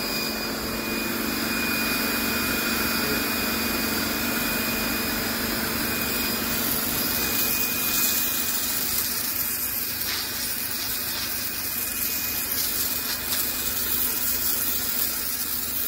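A 2000 PSI electric pressure washer running steadily, its motor and pump giving a low hum with a high whine, and the water jet hissing as it sprays onto concrete.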